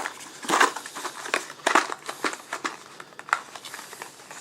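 Cardboard ammunition boxes being handled: an irregular run of short taps, clicks and rustles.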